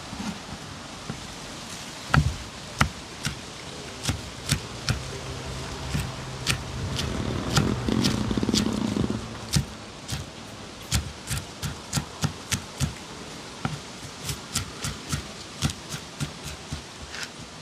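Knife chopping: a string of sharp knocks, coming about two or three a second in the second half. About halfway through there is a louder stretch of noisy rustling.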